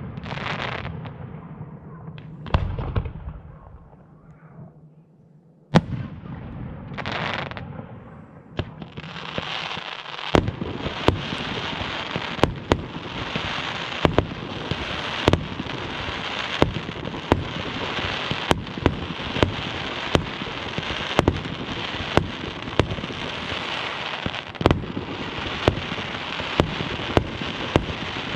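Fireworks going off. In the first seconds a few separate loud bangs come with hissing. From about ten seconds in the display turns into a dense, continuous crackling with sharp bangs about every half second to a second.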